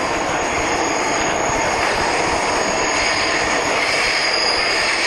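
Chennai Metro train running, heard from inside the carriage: a steady rumble of the wheels on the rails with a thin, steady high whine over it.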